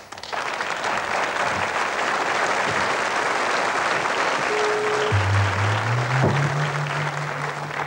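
Studio audience applauding. About five seconds in, a low steady electronic tone enters beneath the clapping, steps up in pitch and holds.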